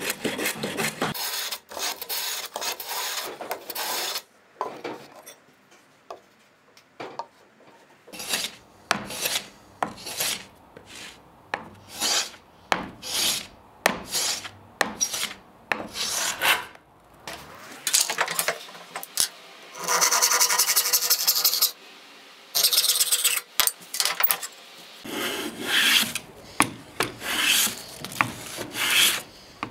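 Hand plane taking shavings off a wooden board in repeated push strokes, each a rasping hiss. The strokes come about one a second, with a quieter pause of a few seconds early on and a longer unbroken stroke past the middle.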